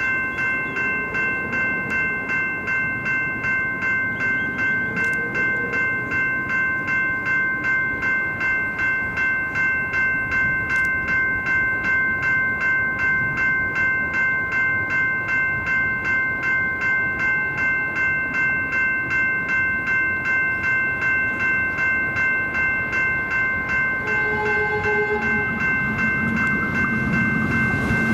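Two General Signals E-Bell Type 2 electronic level-crossing bells ringing, a bright multi-tone ding repeated about twice a second, warning that the crossing is active. Near the end the rumble of an approaching train builds under the bells.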